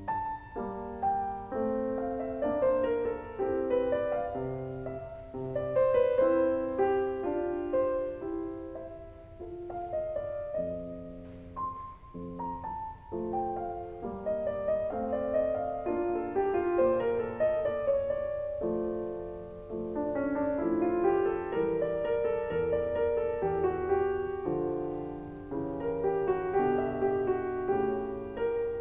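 Piano music: a flowing line of notes over chords.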